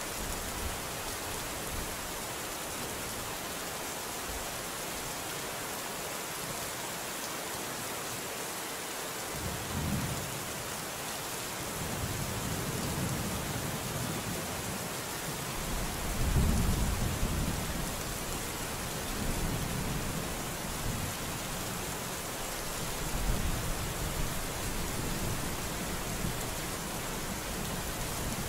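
Steady heavy rain falling. Thunder rumbles in several low swells from about a third of the way in, loudest a little past the middle.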